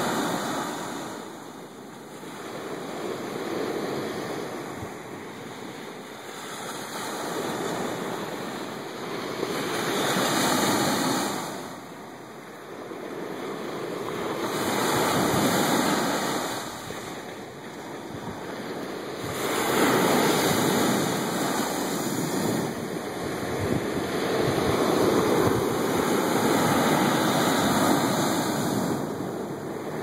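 Ocean surf breaking on a sandy beach: a steady wash of white water that swells and fades about every five seconds as each small wave breaks and runs up the sand.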